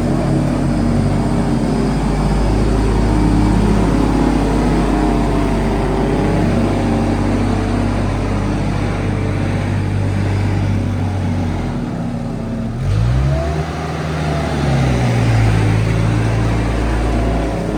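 A vehicle engine runs steadily. A little past the middle it changes speed, its pitch sweeping up and then easing back.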